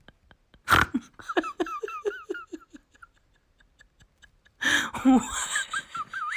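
Light ticking about four times a second, then a sudden loud burst of noise and a voice laughing in quick bouncing "ha" notes. After a short gap there is a second burst and more laughing.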